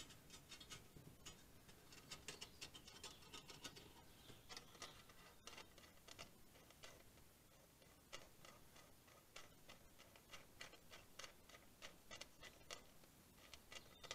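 Faint, irregular clicks and light taps as a long machine screw and a galvanized sheet-metal plate are handled and fitted together.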